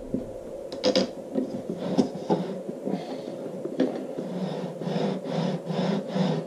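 Aluminium bed carriage on V-groove mini wheels being worked by hand on 2020 aluminium extrusion rails. A few sharp clicks come in the first half. After that a rubbing roll pulses about three times a second as the bed is pushed back and forth along the rails to test the wheel adjustment.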